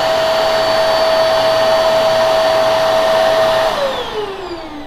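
Hart Tools upright vacuum cleaner running with a loud steady whine, then switched off about three-quarters of the way through, its motor winding down with a falling whine.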